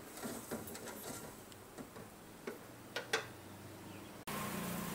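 A wooden spatula stirring sugar water in a stainless steel pot, with light scattered taps and scrapes of wood against the metal. About four seconds in the sound cuts to a steady low hum.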